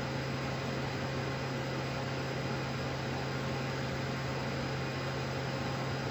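Steady cabin background noise aboard the International Space Station: a constant low hum under an even hiss of ventilation fans and equipment, unchanging throughout.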